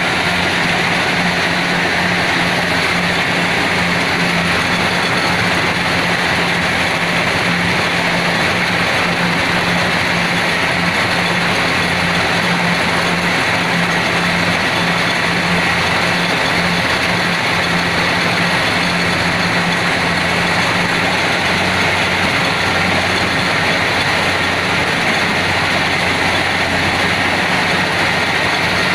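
Kubota DC70PH+ combine harvester running steadily, its diesel engine holding a constant low hum under a broad, even mechanical noise.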